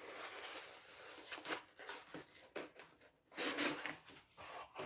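Packaging being handled: irregular rustling and rubbing scrapes, a few short louder ones about one and a half and three and a half seconds in.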